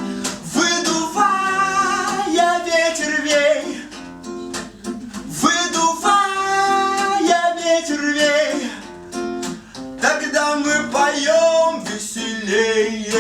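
Live acoustic song: a strummed acoustic guitar with a voice singing a melody over it.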